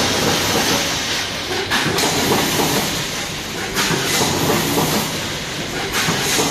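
Automatic snack packaging line running: a multihead weigher and vertical form-fill-seal bagging machine clattering and hissing steadily, with louder surges about every two seconds as each bag cycle runs.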